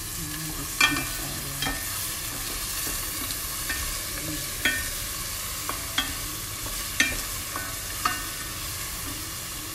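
Diced vegetables sizzling in olive oil in a pan with a steady frying hiss, stirred with a wooden spoon that knocks against the pan about six times, each knock with a short ring.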